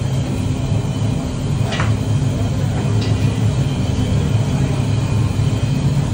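Steady low rumble of a commercial kitchen's lit gas burners and extractor hood running, with a few faint clinks of the long stirring paddle against a steel pot.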